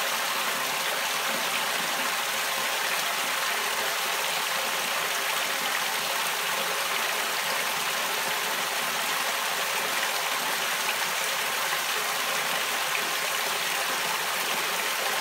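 Steady rush and splash of water pouring out of the perforated inlet pipe of a homemade fleece filter onto the filter fleece as the filter fills.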